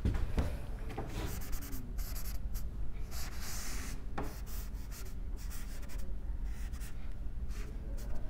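Cloth duster rubbing on a chalkboard, wiping off chalk lines in a series of short strokes.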